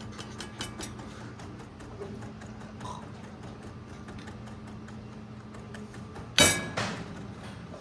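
A few light knife taps on a cutting board, chopping parsley, then one loud sharp clink with a brief metallic ring about six and a half seconds in, over a steady low hum.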